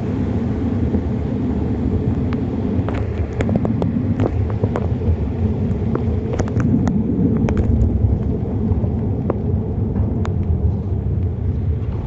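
Wind buffeting the microphone of a handlebar-mounted phone on a bicycle ridden through heavy rain: a loud, steady low rumble with scattered sharp ticks.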